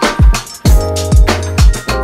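Background music with a steady beat: deep electronic kick drums about twice a second over sustained bass and chords.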